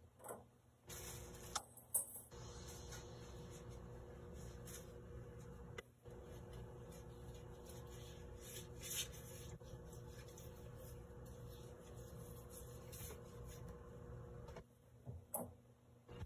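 A white pad wiped back and forth across the flat plate of an electric griddle, a faint steady scrubbing as it spreads a puddle of liquid. The wiping stops a little before the end, followed by a couple of light knocks.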